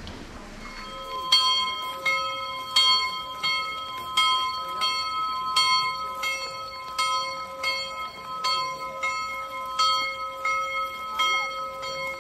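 Church bell ringing, struck in an even rhythm about three times every two seconds, starting about a second in.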